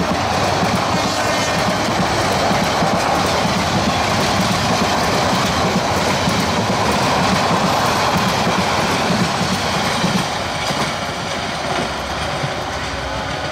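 Passenger coaches of a metre-gauge express train rushing past close by, a steady loud rumble with the clickety-clack of the wheels over the rail joints. Near the end it drops to a somewhat quieter, more distant train running.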